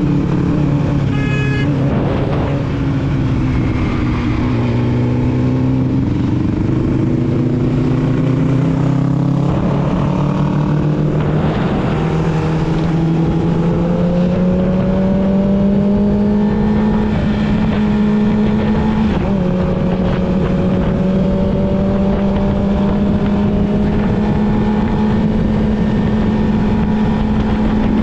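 Yamaha YZF-R6 inline-four with a full aftermarket exhaust system, heard from onboard while riding. The engine note eases down over the first few seconds, then climbs slowly with a brief dip about two-thirds through, and holds steady at cruising revs.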